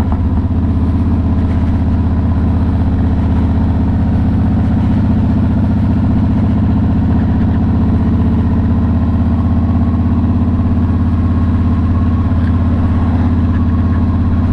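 Victory Hammer motorcycle's V-twin engine running steadily while cruising, a constant low exhaust drone.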